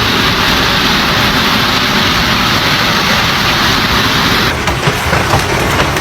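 Hail pelting down, a loud, dense hiss of stones striking. About four and a half seconds in it turns thinner, with separate sharp ticks of single hailstones.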